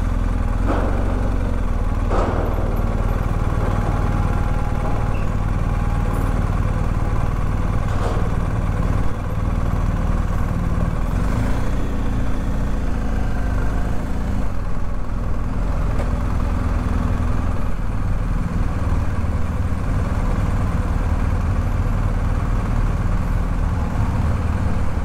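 Steady low engine rumble of a motor vehicle running, with no change in pitch.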